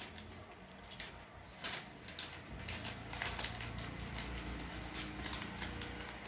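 Foil Lay's potato chip packet crinkling and rustling in quick irregular crackles as a hand rummages inside it for chips, mixed with the crunch of chips being chewed. A low steady hum comes in about two and a half seconds in.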